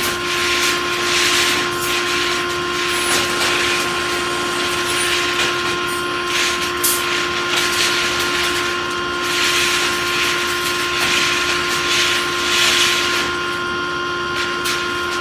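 Pneumatic reinforcing-steel mesh welding machine running, with bursts of air hiss about every one to two seconds over a steady machine whine.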